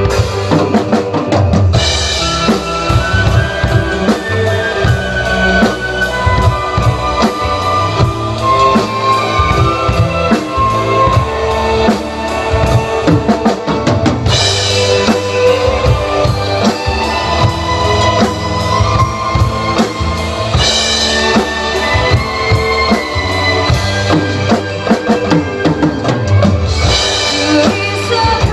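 Drum kit played along to a Korean trot backing track through an instrumental passage: a steady beat of kick, snare and rimshots under the melody, with bright cymbal crashes four times.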